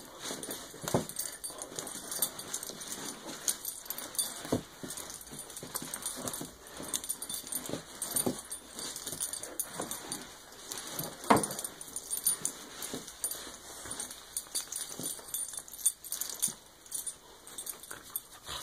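A dog play-wrestling with a person's hand on a rug: dog vocal noises over scuffling, with irregular short knocks and scrapes, the loudest about eleven seconds in.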